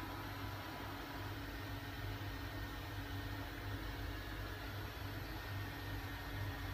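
Steady low mechanical hum with a few faint steady tones over an even hiss, like a running appliance or fan.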